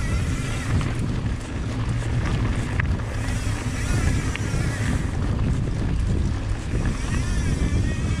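Wind buffeting the microphone over the rumble of mountain bike tyres rolling down a dirt trail, with a wavering high whine about seven seconds in.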